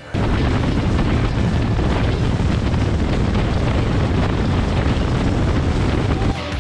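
Wind buffeting the microphone of a camera mounted low by a motorcycle's front wheel at highway speed, a loud, dense rush mixed with road noise. It starts and stops abruptly.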